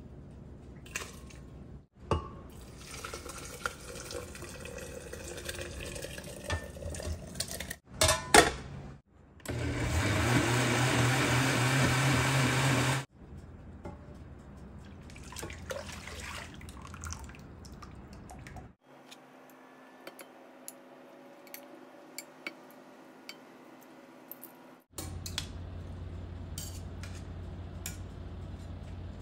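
Kitchen sounds over several short cuts: a pan of onion sauce simmering and being ladled, then a countertop blender running steadily for about three seconds as it purées the cooked onions, the loudest sound, then the blended sauce pouring into a pan, with small clicks of tongs against the pan near the end.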